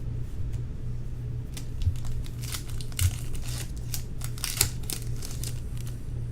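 Crinkling of a foil trading-card pack wrapper being torn open and handled. The crackling comes in a cluster of quick strokes through the middle, over a steady low hum.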